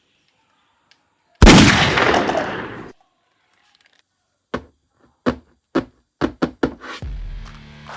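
A loud sudden blast that dies away over about a second and a half, then a quick irregular string of sharp cracks, like shots, then music coming in near the end.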